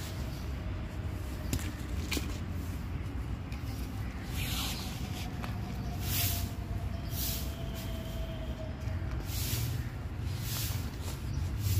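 Dry loose soil and pebbles scooped and dropped by hand, short gritty pours about a second apart, over a steady low rumble.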